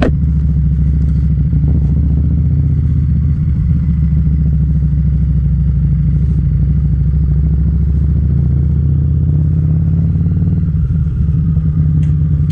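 Harley-Davidson Street Rod's 750 cc V-twin running steadily while the motorcycle is ridden, a continuous low engine note with a slight shift in pitch about nine seconds in.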